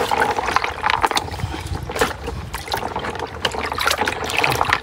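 Water splashing with irregular knocks and clatter as exhumed bones are washed by hand in a basin.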